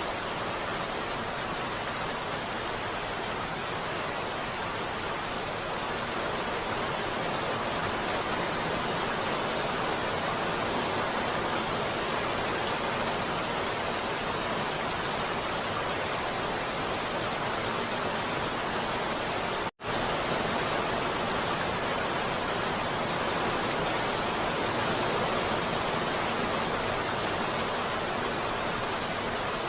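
Heavy rain falling steadily as an even hiss. Near the two-thirds mark it cuts out to silence for a split second and straight back in.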